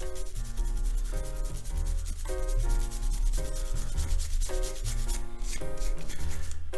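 Quick repeated rubbing and scrubbing on the Nikon EM camera's body as grime is cleaned off, over background music with a bass line and changing chords.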